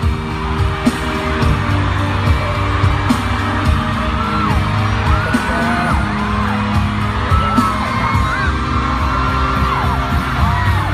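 Loud pop music with singing, whoops and yells over it, and frequent sharp beats.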